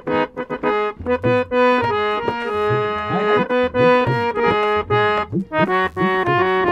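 Harmonium playing a melody in steady held notes, accompanied by tabla. The tabla gives quick strokes, and its bass drum's notes swoop up and down in pitch.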